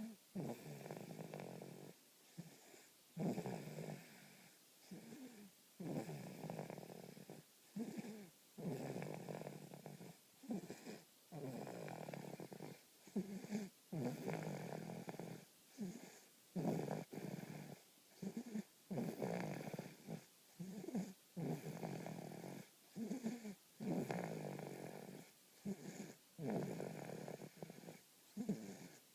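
Steady snoring in a long run of rasping breaths, roughly one every second or two.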